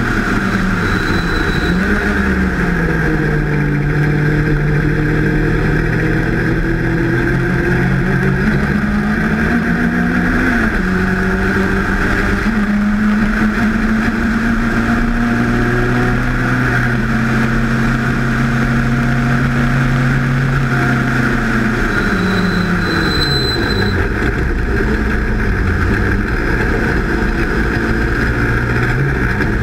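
Race car engine heard from the open cockpit, running at high revs under full throttle with wind and road noise, with gear changes about two seconds in and again around ten seconds. Past the two-thirds mark the revs fall away in steps as the car brakes and downshifts for a corner.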